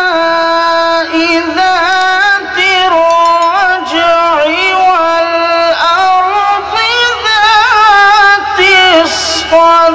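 A male qari chanting Quran recitation (tilawat) into a microphone in one long melodic line, holding high notes with wavering ornamented turns and pausing only briefly a few times.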